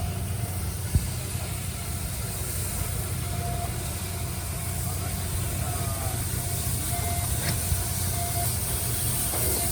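A low, steady engine rumble, with a single thump about a second in.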